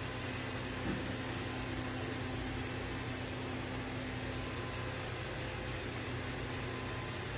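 Kilgone G20 robot vacuum running: a steady motor and suction-fan hum with hiss and a few faint steady tones, and a soft knock about a second in.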